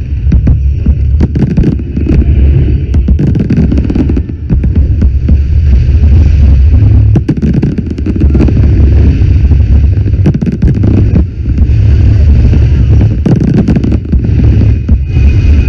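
Fireworks going off in a dense, loud barrage: a constant deep rumble of booms with many sharp cracks and pops over it.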